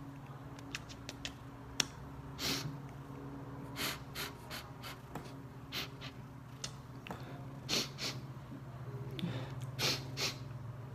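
A person crying quietly: a series of short sniffles and gasping breaths, one every second or two.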